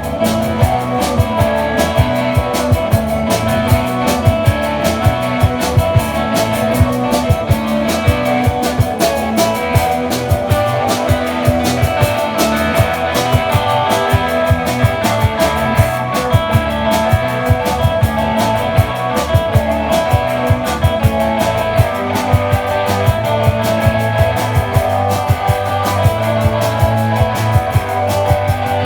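Rock band playing live: an instrumental passage of guitar over a steady drum-kit beat, with a heavier bass note coming in near the end.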